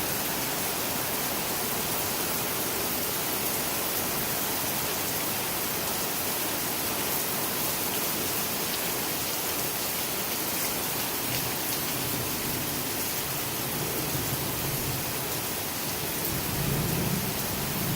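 Heavy rain pouring down during a thunderstorm: a steady, even hiss of rainfall.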